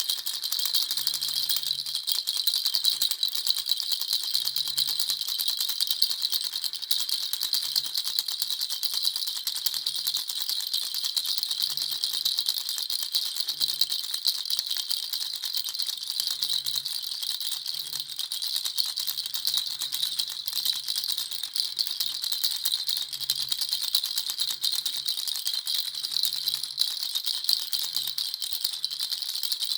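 Baby rattle shaken without a break: a dense, high, continuous patter of small beads clicking.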